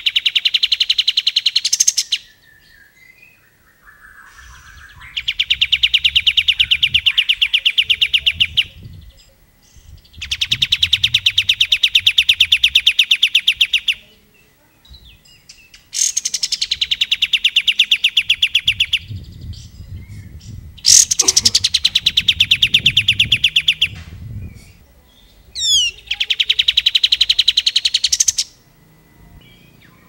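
Olive-winged bulbul (kapas tembak) singing in six bursts of fast, rattling repeated notes, each burst lasting two to four seconds with short pauses between.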